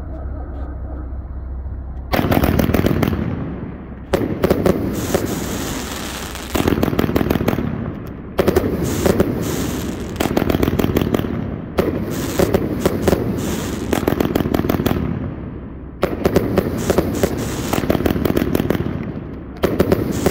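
A 49-shot consumer firework cake firing, starting about two seconds in. It sends up shot after shot in quick succession, with bursts overhead and dense crackling, and short lulls of about a second between volleys.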